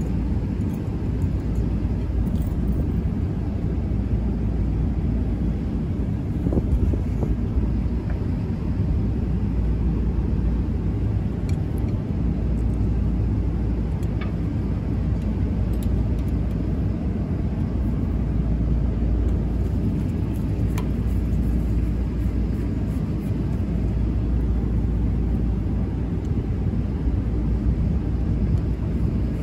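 Steady low rumble of background noise, with a few faint clicks from a screwdriver working on the motor's metal terminal box and cover.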